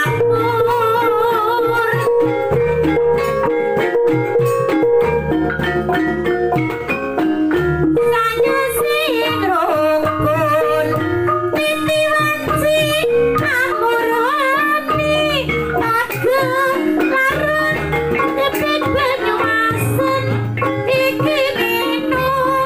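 Javanese gamelan ensemble playing a gendhing: bronze bonang kettle gongs struck in running patterns, with the kendang drum and gongs beneath, and a voice singing over it in a wavering line.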